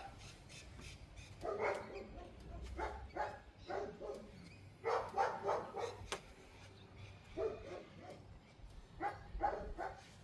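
Dogs barking repeatedly in several short bursts, with pauses of a second or so between them.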